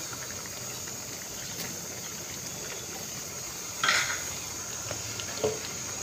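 Fish curry simmering in a pan, a steady low bubbling hiss, with a brief rustling clatter about four seconds in and a short knock against the pan a moment later.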